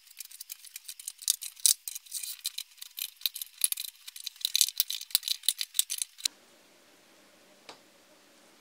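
Rapid, dense clicking and clattering of 18650 lithium-ion cells being pushed into plastic cell holders, played fast-forward so the clicks run together. About six seconds in it cuts off suddenly to faint room tone with a low hum.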